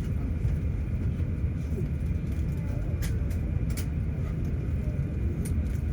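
Steady low cabin rumble inside an Airbus A350-900 airliner on the ground before takeoff, with a faint steady high tone and a few light ticks.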